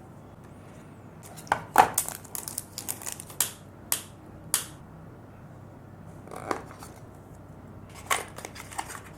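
Product packaging being handled and opened: sharp crinkles, taps and clicks in clusters, from about a second in to almost five seconds, once more around six and a half seconds, and again near the end.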